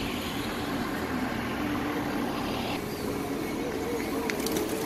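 Steady outdoor crowd and traffic noise. Its sound shifts about three seconds in, and a few light clicks follow near the end.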